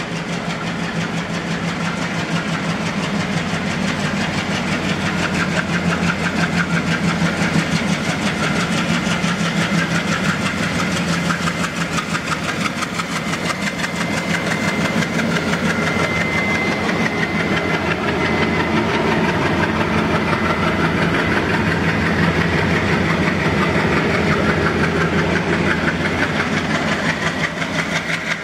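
ALCo-built WDG 3A diesel freight locomotive's 16-cylinder engine chugging steadily as it hauls a freight rake. A thin high tone sounds briefly about halfway.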